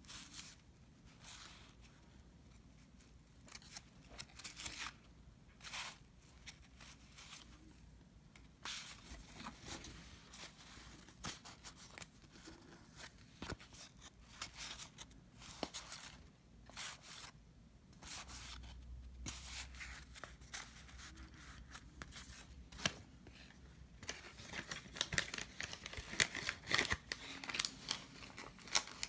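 Trading cards and paper pack wrappers from a 1990 Fleer basketball box being handled: irregular rustling, sliding and tearing, busier over the last few seconds.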